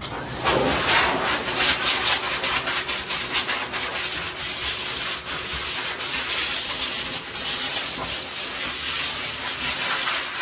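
Water running hard from a grooming tub's hose into a stainless steel tub: a steady hissing rush that starts suddenly.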